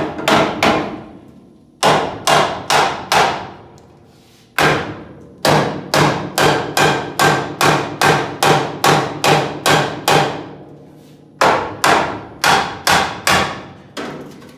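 Hammer blows on the metal shock mount bracket of a 1970 Plymouth Barracuda's front frame, each ringing briefly. They come in quick runs of four or five, with one long run of about fifteen at roughly three a second in the middle.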